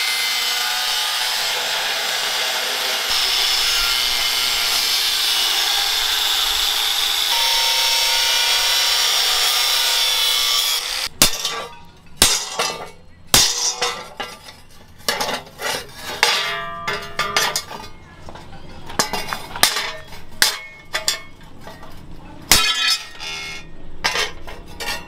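Angle grinder with a thin cut-off disc cutting into a rusty steel circular saw blade: steady grinding that stops suddenly about eleven seconds in. Then irregular metallic clinks and knocks as the scored pieces are bent and snapped off the blade with pliers.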